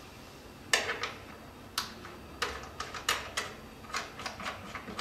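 A quick, irregular run of about a dozen sharp clicks and taps, like hard plastic parts being handled. The first, about a second in, is the loudest.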